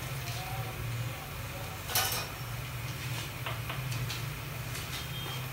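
Electric smokeless grill humming steadily as eggplants roast on its rack, with a few scattered pops and ticks, the loudest about two seconds in.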